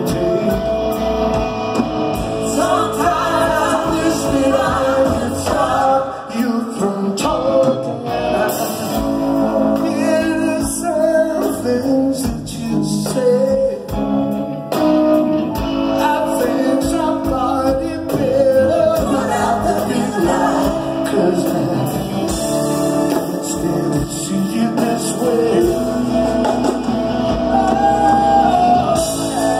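Live rock band playing a slow ballad in a large hall: electric guitar and bass under a male lead voice with female backing singers.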